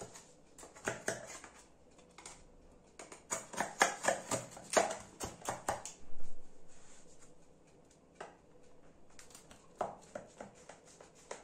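A kitchen knife cutting through the baked layers of a su böreği in its tray: a dense run of crackling clicks for about five seconds, then a few scattered clicks.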